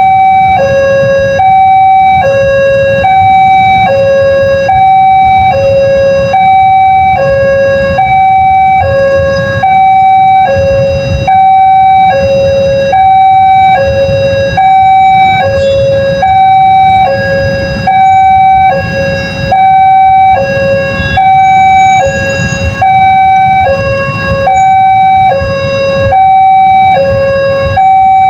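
Railway level-crossing warning siren, a newly fitted Daop 2 Bandung-type unit, sounding a steady two-tone hi-lo pattern, each tone lasting about 0.7 s. A low rumble runs underneath.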